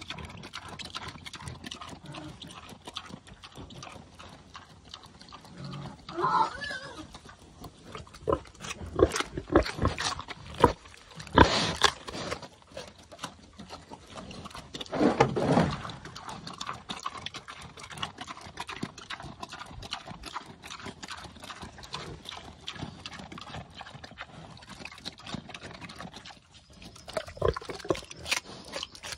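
A large boar eating raw carrots off the ground: crunching and chomping, with a few louder grunts. The loudest grunts come about halfway through.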